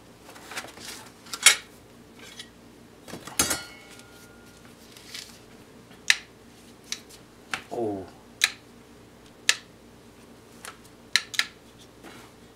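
Handling noise from a metal airsoft AK being lifted out of its foam case: scattered sharp clicks and knocks of metal parts, with one brief rising squeak about two-thirds of the way through.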